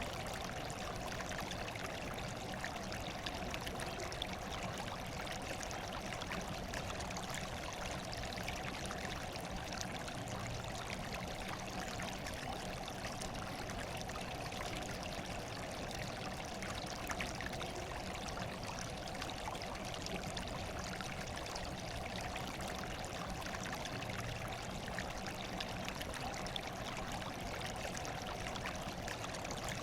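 Steady running water, a stream pouring and trickling without a break, used as natural white noise.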